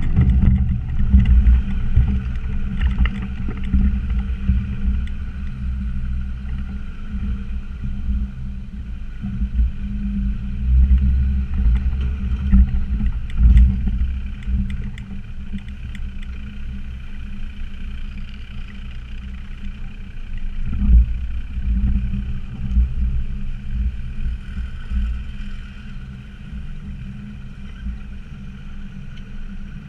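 Land Rover Discovery Td5's 2.5-litre five-cylinder turbodiesel running at low revs on a rough off-road track, heard from the cab, with occasional low thumps and knocks from the body and suspension over the bumps. It gets quieter near the end.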